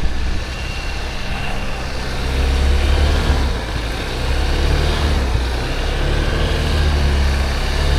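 Car driving, with a steady low road and engine rumble.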